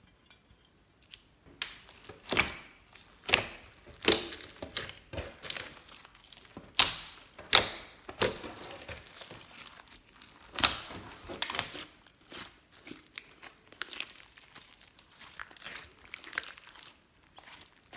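Slime being squished and worked by hand, making irregular sticky crackles and pops, some sharp, that begin after a second or so of quiet.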